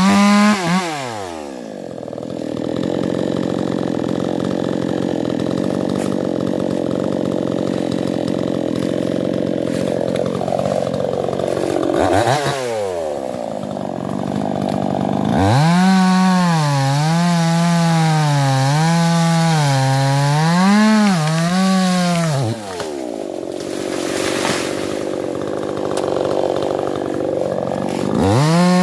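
Stihl two-stroke chainsaw dropping from full throttle to idle, blipped once, then held at high revs for about seven seconds with its pitch rising and falling as if biting into wood. It then falls back to idle and revs up again near the end.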